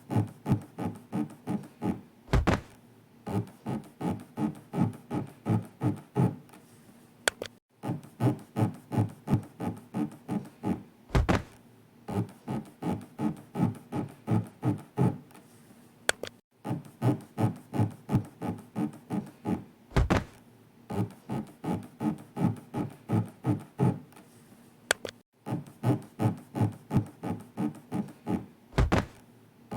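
Repeating 'zuri-zuri' rubbing sound effect in short strokes, about three a second, standing for an elevator floor scraping along the inner walls of the body as a pace cue for elevator breathing. A low thud comes four times, about nine seconds apart, with a brief pause between each pair of thuds.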